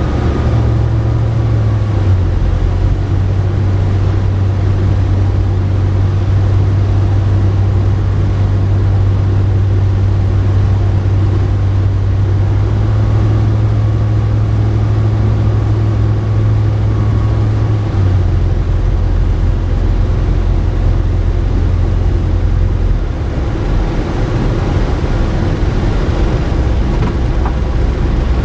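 Light aircraft's piston engine and propeller droning steadily on final approach. The engine note steps down about two seconds in and again around eighteen seconds in, as power comes off for landing.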